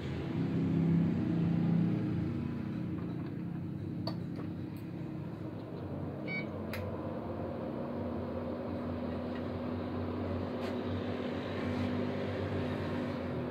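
Olympus CLV-180 endoscope light source running with its case open: a steady whirring machine hum with a steady tone in it, and a few faint clicks.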